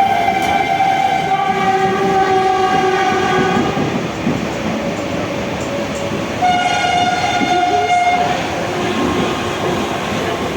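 Express train's horn sounding a long blast for nearly four seconds and then a second, shorter blast about six and a half seconds in, over the steady rumble and clatter of its wheels on the rails at high speed.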